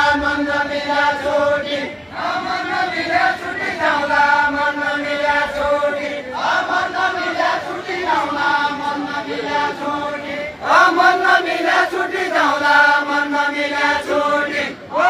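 Deuda folk song: voices chanting a slow, drawn-out melody in phrases about four seconds long, each ending in a held note before a short break.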